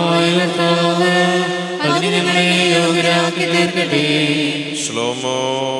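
A man chanting a slow liturgical melody in long held notes, amplified through a microphone: the chant that leads into the Gospel reading in a Syro-Malankara (West Syriac) baptism rite.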